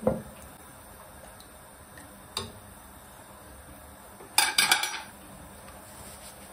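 Kitchen utensils knocking and clattering against a cooking pot: a sharp knock at the start, a light click about two and a half seconds in, then a quick run of clatters about four and a half seconds in.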